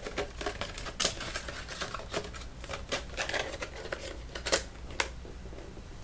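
Irregular light clicks and rustles of computer parts and their packaging being handled by hand, with sharper clicks about a second in and twice near the end.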